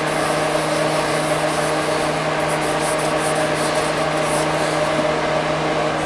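A steady machine drone with a constant low hum, like a running motor. Over it, a few short rubbing strokes of a pad wiping a wooden belt buckle, from about two to four and a half seconds in.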